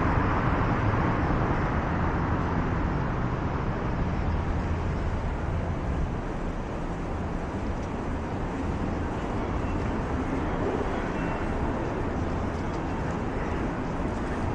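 Steady city traffic noise: cars driving along a busy downtown street, a continuous rush of engines and tyres on the road.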